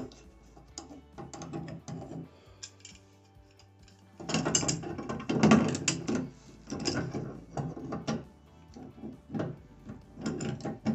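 Wrench turning and tightening a new brass Crane shower valve into its wall fitting: irregular metallic clicking and scraping, busiest about four to six seconds in, then in short bursts about once a second.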